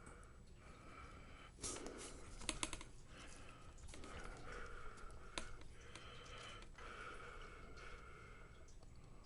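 Light clicks and taps of small plastic laptop parts being handled and fitted during reassembly, a few close together about two seconds in and single ones later.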